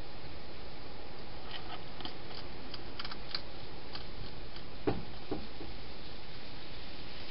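Steady hiss with scattered small clicks and crunches, and two sharper knocks about five seconds in, from a hedgehog feeding inside a clear plastic feeding box.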